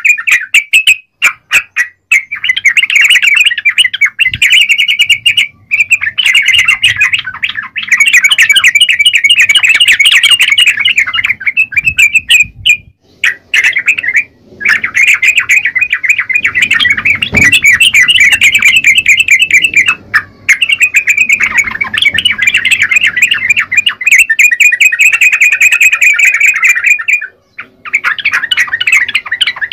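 Yellow-vented bulbul (trucukan) singing loudly in long, fast runs of short chattering notes, broken by a few brief pauses.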